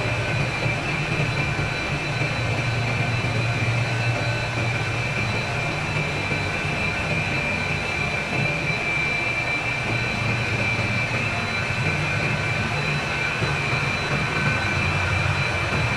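Chiller machinery running steadily: a constant low hum under a steady high-pitched whine, with no change in speed.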